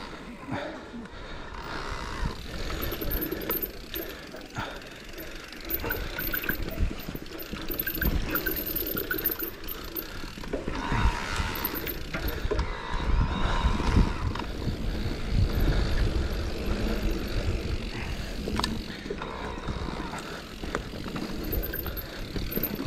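Electric mountain bike ridden over a dirt forest trail: a steady rush of tyres rolling on the ground, with many small knocks and rattles from the bike over bumps.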